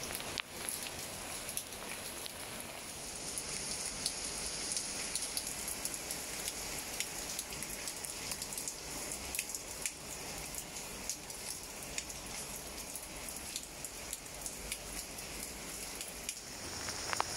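Steady rain falling on leafy plants: a continuous hiss dotted with many small ticks of individual drops. The hiss shifts slightly in tone near the end.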